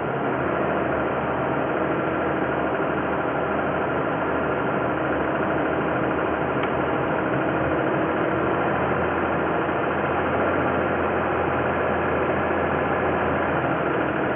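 Toyota 2GR-FE 3.5-litre V6 engine running with a knock, heard as in the cabin with hiss filtered out. The owner wonders whether thinner 5W-20 oil is to blame, but has no proof.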